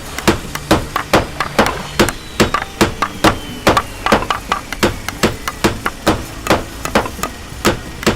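A fast run of sharp, hammer-like knocks, about two to three a second, over a steady low backing tone.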